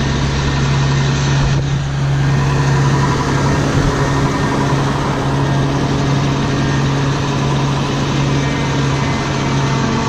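Large diesel engine, most likely the John Deere 7720 combine's, running steadily at a constant speed with a low, even drone.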